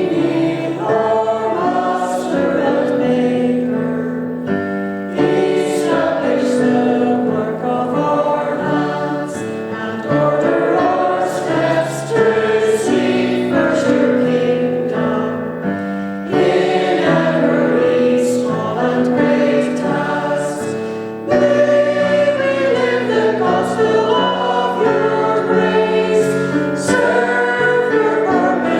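Choir singing a hymn, several voices holding sustained notes together, in phrases that break about every five seconds.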